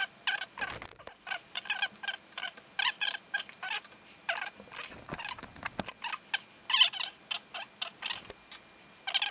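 Quick, irregular metallic clicks and ticks, often in short clusters, from tools and the spirit level being handled on a lathe while its levelling screws are adjusted.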